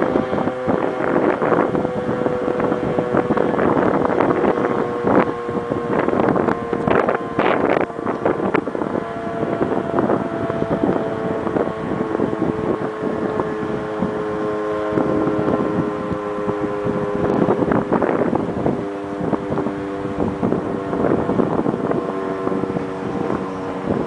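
Outdoor warning sirens sounding steady tones at several slightly different pitches, with gusting wind buffeting the microphone.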